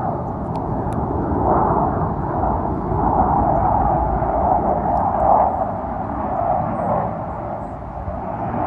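Jet noise from Navy jet aircraft in flight, a loud, steady rushing sound that swells and eases every second or two, dipping slightly near the end before growing louder again.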